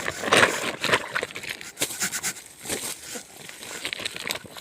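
Irregular rustling and crackling with scattered sharp clicks.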